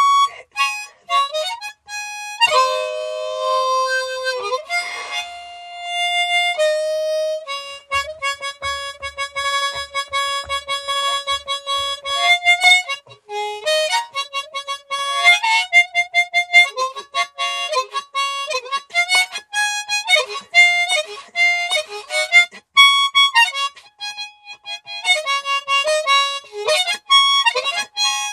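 Harmonica played solo: a few notes and two-note chords held for a second or two, then mostly quick runs of short notes broken by brief pauses.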